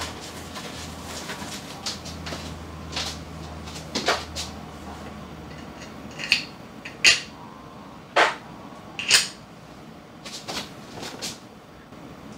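Sharp clicks and light knocks of a coffee grinder's small parts being handled and fitted: the chute pushed onto the grinder's outlet and a dosing cup set down beneath it. Four louder clicks come between about six and nine seconds in.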